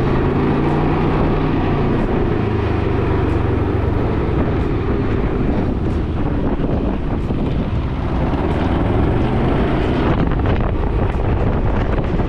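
Vehicle engine running steadily, with wind noise on the microphone.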